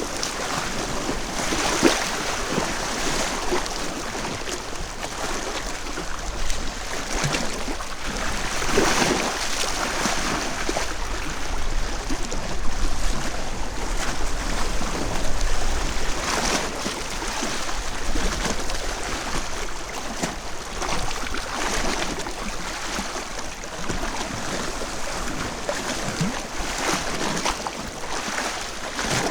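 Small waves washing and splashing on a lake beach in a cold, strong wind, in irregular surges every few seconds, picked up by a microphone inside a Rode Blimp windshield.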